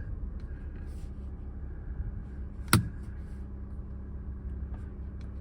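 Vauxhall Tigra engine idling, a steady low hum heard from inside the cabin, with one sharp click a little under three seconds in.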